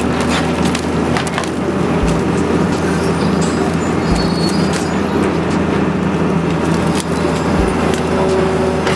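Excavator engine running under load while a wooden house is torn apart: steady low engine hum with continual cracking and splintering of timber.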